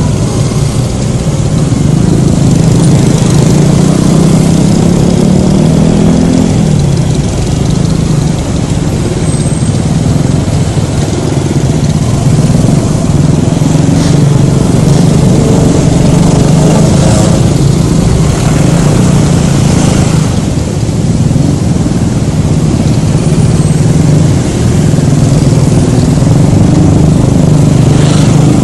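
Loud riding noise picked up by a phone microphone mounted on a helmet. Wind rumbles over the microphone, and a Honda Scoopy scooter's small engine runs steadily underneath.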